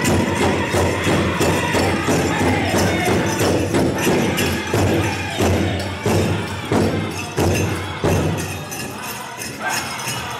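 Pow wow drum group beating a large powwow drum in a steady rhythm, with dancers' bells jingling. About halfway through the strokes come harder and farther apart, and the level drops near the end.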